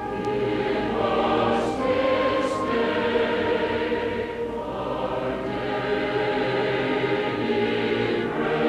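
A choir singing: background music.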